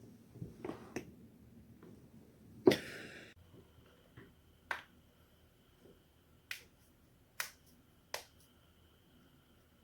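A person's joints cracking, one sharp pop at a time: a few faint clicks in the first second, a loud pop about two and a half seconds in with a brief rustle after it, then four more sharp pops roughly a second apart.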